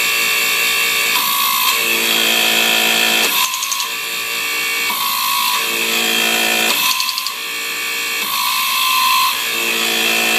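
Hydraulic pump running while a TTZ low-profile hydraulic torque wrench ratchets on a nut. The sound changes in a repeating cycle about every three and a half seconds, with a short burst of ratchet clicks about three and a half seconds in.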